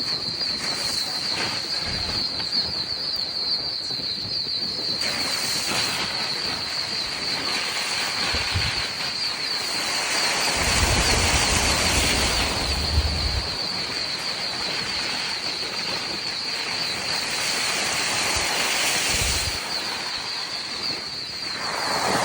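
Chorus of frogs calling in a steady high trill, over a noisy hiss that swells and fades, with low rumbles of wind buffeting the microphone.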